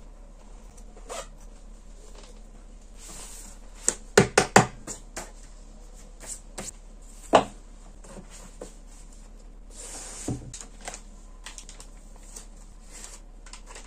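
Objects being handled and set down on a desk. There is a quick run of four sharp knocks about four seconds in, a single loud knock a few seconds later and a dull thump near the end, with soft rustling of packets and paper in between.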